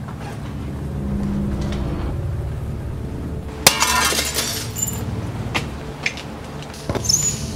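A glass window pane shatters suddenly, just under halfway through, and for most of a second; a few separate small clinks of falling glass pieces follow. A low steady drone runs underneath.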